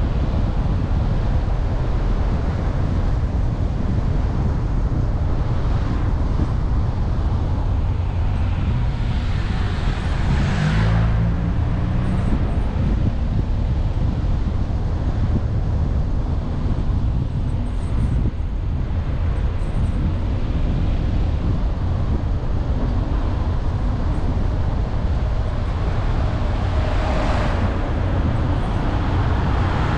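Steady road and wind noise from a vehicle driving along a street. An oncoming motor scooter swells past about a third of the way in, and another vehicle passes near the end.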